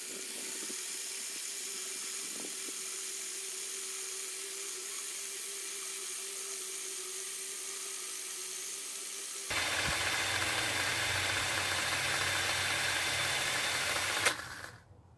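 Cordless drill running steadily, spinning a spool to wind welding wire onto it off a larger spool. It gets louder about two-thirds of the way through and stops abruptly near the end.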